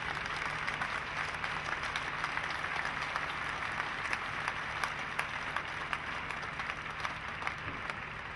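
Crowd applauding: a dense, steady patter of many hands clapping, over a low steady hum.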